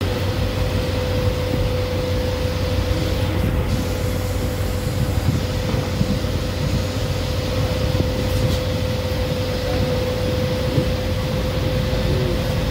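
Moving passenger train heard from inside an open-window coach: a steady rumble of the wheels on the track, with a steady hum over it.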